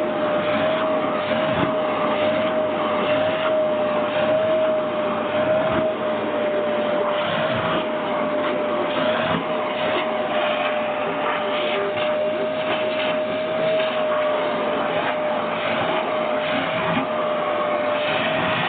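Household vacuum cleaner running steadily, a constant whine over a rushing hiss, its nozzle being run over a cat's fur.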